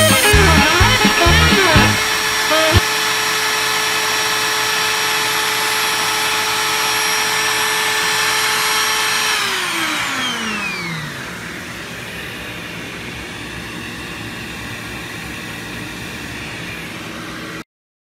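DeWalt router spindle on a CNC machine running with a steady high whine, then switched off about ten seconds in, its pitch falling smoothly as it spins down. A quieter steady hiss follows and cuts off suddenly near the end.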